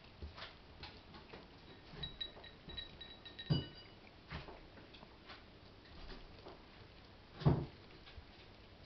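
A cat eating snow crab meat from a small plate: soft, irregular chewing and lip-smacking clicks, with two louder knocks, about three and a half and seven and a half seconds in.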